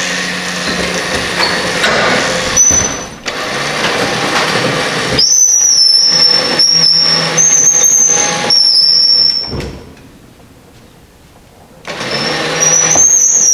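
A heavy generator being dragged on a cable through a snatch block: metal scraping, with a high wavering squeal that starts about five seconds in. The sound drops away briefly and then comes back near the end.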